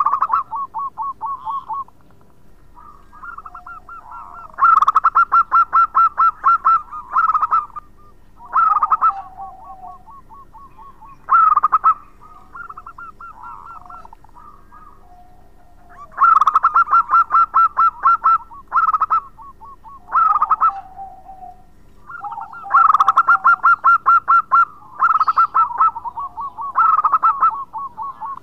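Zebra dove (perkutut) singing. It gives loud, rapidly stuttering cooing phrases every few seconds, with softer trilled coos between them.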